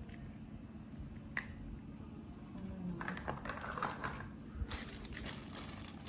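Crinkling and rustling with sharp clicks: one click about a second and a half in, then two spells of crackly rustling in the second half.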